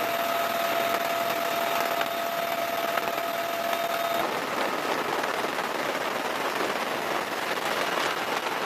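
Steady engine noise, a rushing roar with a steady whine that drops out about four seconds in.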